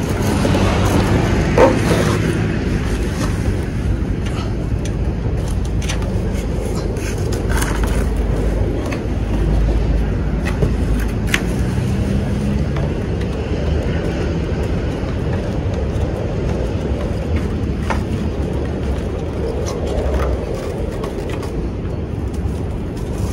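Steady low rumble of outdoor road traffic, with a few short clicks and rustles as cord is pulled tight around a cardboard box on a bicycle's rear rack.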